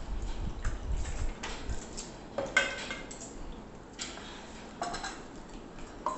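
Metal spoons and forks clinking against plates during a meal: scattered light clinks, the loudest about two and a half seconds in with a brief ring, and another ringing clink near five seconds. Soft low thumps in the first two seconds.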